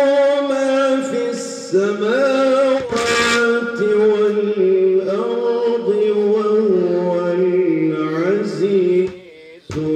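A man reciting the Quran in the melodic tilawah style, holding long ornamented notes that wind up and down in pitch. There is a short hiss about three seconds in and a brief break near the end.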